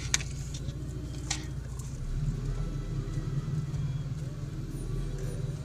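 Off-road vehicle engine running with a steady low rumble, with two sharp clicks or knocks in the first second and a half.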